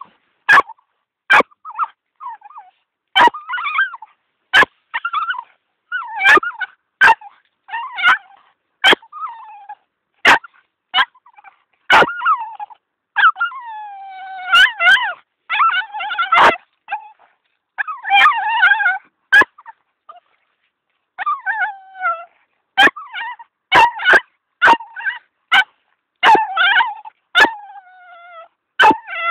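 Cavalier King Charles spaniel whining and yipping over and over in high-pitched, falling cries, broken by many short sharp clicks: the excited whining of a dog fixated on its ball.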